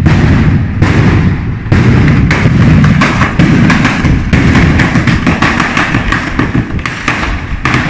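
A batteria, a ground-laid chain of firecrackers, going off in a loud, continuous rapid string of bangs and crackles.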